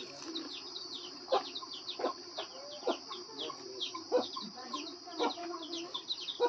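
Birds chirping in a rapid run of short, falling notes over a steady high hiss. Short clucks, typical of chickens, come about once a second.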